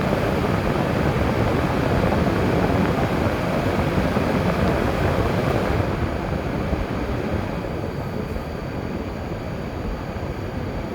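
Steady road and tyre noise of a moving car heard from inside, easing off and getting duller about six seconds in.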